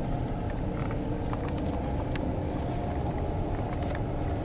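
Pickup truck engine running, heard from inside the cab as a steady low rumble with a constant hum and a few faint ticks.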